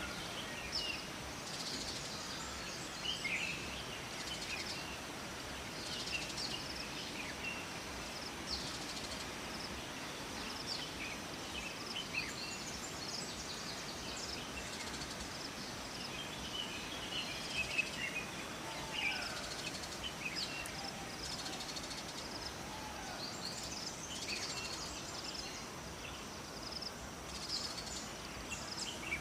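Steady rush of flowing water, with small birds chirping and calling on and off throughout.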